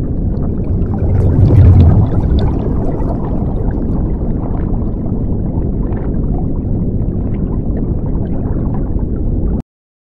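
Underwater ambience sound effect: a deep, steady rush of water with bubbling, swelling briefly about a second and a half in, then cutting off abruptly near the end.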